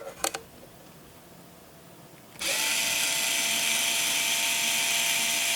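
A few light handling clicks, then about two and a half seconds in a small electric screwdriver starts and runs at a steady speed for several seconds, unscrewing the long screws of a NUC chassis.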